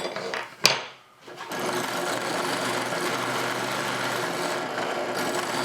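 A drill press is switched on with a sharp click. Its motor comes up to speed and then runs steadily, spinning a homemade plywood sanding spindle.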